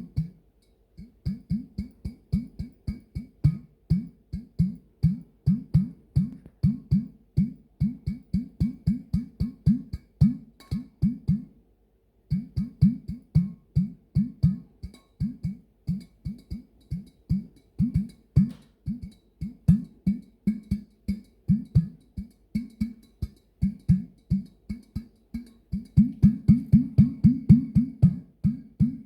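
Music: a low plucked string line, short notes repeating at about three to four a second, with a brief pause about twelve seconds in.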